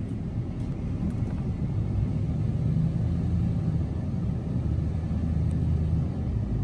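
Ram pickup truck reversing at low speed, heard from inside the cab: a steady low engine rumble that grows stronger and more even from about two and a half seconds in, easing off near the end.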